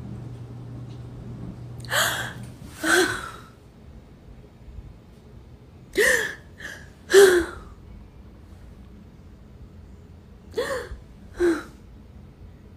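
A woman fake-sobbing in exaggerated, gasping wails. The cries come in short bursts, two or three at a time, in three groups with quiet between them.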